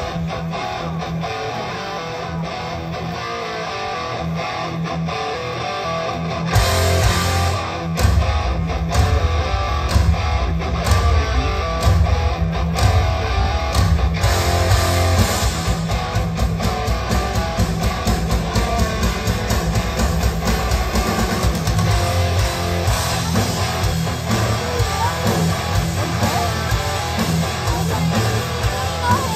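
Rock music with electric guitar and a steady beat; the low end and beat get heavier about six seconds in.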